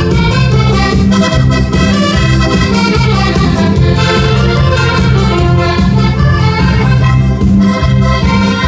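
Loud, lively Portuguese popular dance music from a live band over a PA system, with a steady beat.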